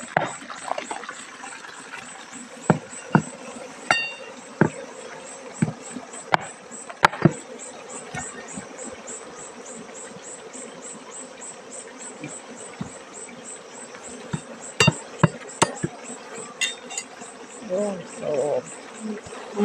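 Honeybees buzzing around an opened log hive, with sharp knocks as a blade strikes and pries at the hive's lid, many in the first several seconds and a few more about three-quarters of the way through.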